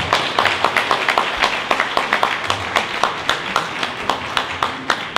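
Audience applauding: many hands clapping in a dense, irregular patter, thinning out near the end.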